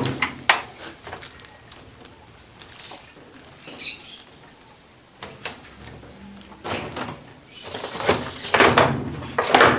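Plastic cabinet lid of a GE 10 kg washing machine being unlatched with a screwdriver and lifted off: sharp clicks of the latches at first, then louder rattling and scraping of the plastic panel near the end.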